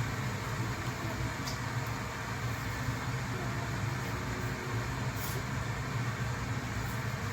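Electric tea kettle heating water toward a boil: a steady low hum with hiss and a few faint ticks.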